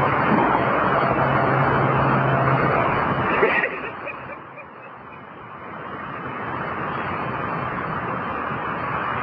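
Steady rushing noise of highway traffic, tyres on an icy, wet road, that drops away suddenly about three and a half seconds in and then slowly builds back up.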